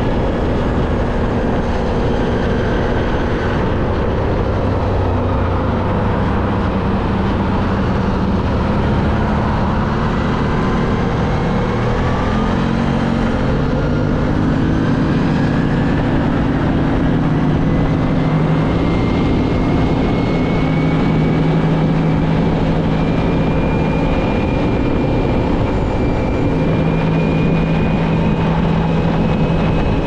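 ATV (quad bike) engine running while riding, its pitch rising and falling with the throttle over a steady rush of noise.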